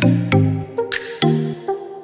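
Background electronic music with a steady, fast beat and a pulsing bass line.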